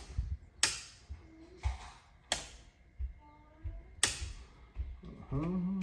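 Four sharp mechanical clicks at uneven intervals, from hands-on work at an electrical panel, with a brief low hummed voice near the end.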